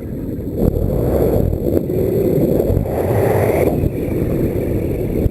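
Wind buffeting the microphone in an irregular, loud rumble, as during a paraglider takeoff or flight.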